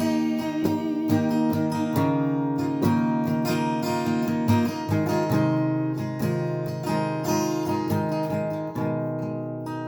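Acoustic guitar strummed in steady chords, an instrumental passage between sung lines.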